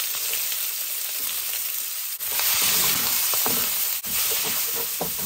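Freshly added chopped red bell pepper, onion and celery sizzling in hot oil in a carbon steel wok, a steady sizzle. From about two seconds in it is stirred with wooden spatulas, adding light scrapes and knocks against the wok.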